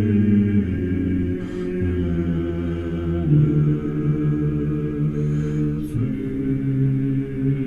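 Slow a cappella chant by low men's voices, held chords shifting to new notes every second or two.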